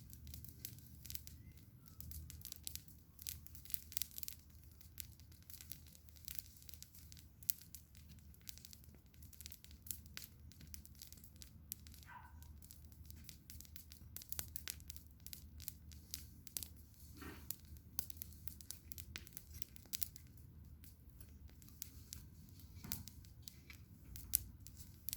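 Bonfire crackling: irregular sharp pops and snaps over a low steady rumble.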